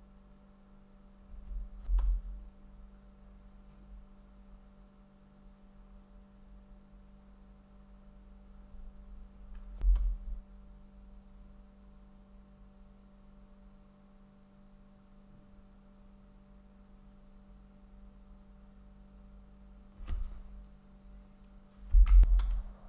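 Steady electrical hum under the quiet table sound of a snooker match, broken by short clicks of snooker balls being struck. Each click comes with a dull low thump: about two seconds in, about ten seconds in, and twice near the end.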